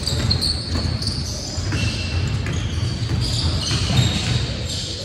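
Basketball game on a gym floor: the ball being dribbled and bouncing, with brief high squeaks.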